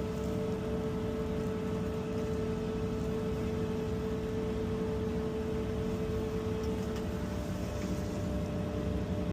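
A machine running steadily: an even hum with a steady mid-pitched tone that holds without change.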